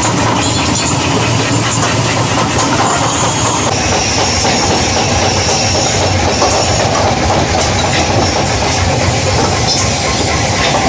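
Loud, steady mechanical din of machinery running, with dense rattling throughout.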